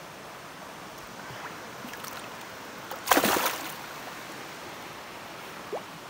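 River water running steadily, with one loud splash about three seconds in as the released smallmouth bass kicks free of the hand.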